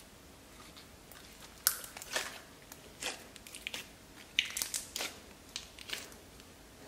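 Jelly cube slime, clear glitter slime packed with small cubes of sponge, being stretched and pressed by hand. It gives off irregular crunchy crackles and pops, a few to a second, clustering where it is pushed back into the glass near the middle and later.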